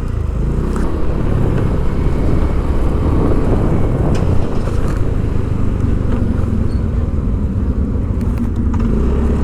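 Motor vehicle travelling through city traffic: a steady, loud low rumble of engine and road noise.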